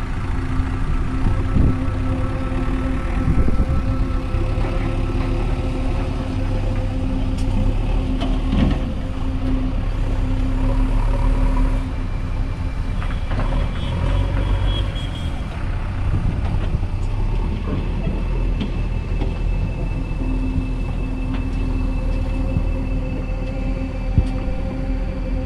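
JCB backhoe loader's diesel engine running steadily at a construction site. A brief high beeping comes about halfway through.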